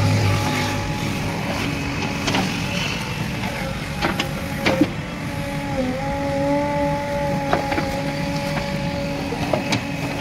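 JCB 3DX backhoe loader's diesel engine and hydraulics working steadily under load as the backhoe bucket digs out soil and roots around a tree stump, with a whining tone that dips briefly about six seconds in. A few sharp knocks of the bucket striking stones and brick rubble.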